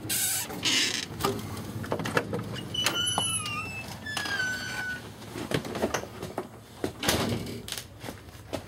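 A door being handled and opened: a series of knocks and bumps, with two short squeaks about three and four and a half seconds in.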